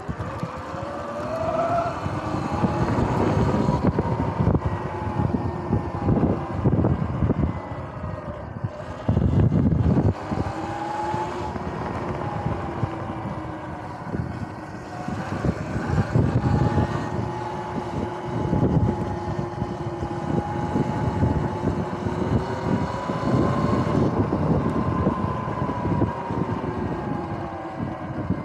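Electric dirt bike's motor whining as it rides, its pitch slowly rising and falling with speed, over heavy wind rumble and buffeting on the microphone.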